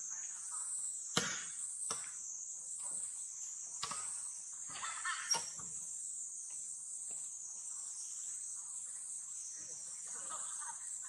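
Steady high-pitched insect chorus, with a few sharp clicks and short bursts of rustling in the first half.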